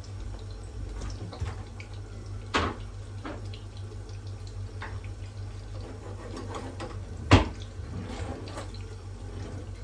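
Meatballs sizzling steadily in hot oil in a frying pan. There is a knock about two and a half seconds in, and near the end a louder clack as a wooden kitchen drawer is pulled open.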